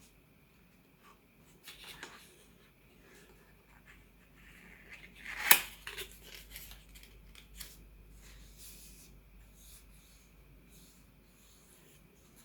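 Perfume box packaging being opened by hand: soft rustling and scraping of cardboard and wrapping, with one sharp snap about five and a half seconds in.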